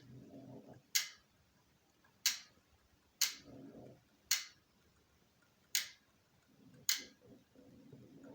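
Drivetrain making a grinding noise: a sharp click about once a second, with stretches of low grinding between some of the clicks, three times in all.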